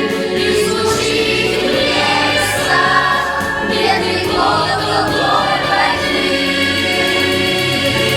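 Choral song: a choir singing long held notes over instrumental backing.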